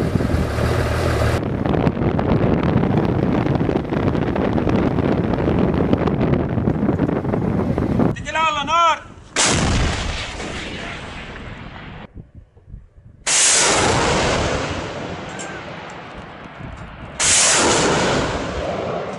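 Heavy weapons fire: three loud blasts about four seconds apart, each trailing off in a long rolling echo, after several seconds of dense, steady rumbling noise.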